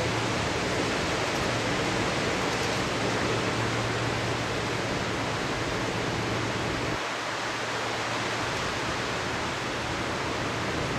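Strong, turbulent wind rushing over the microphone and through the spinning blades of a small homemade wind turbine, a steady whooshing rush. A low hum under it fades about seven seconds in and comes back near the end.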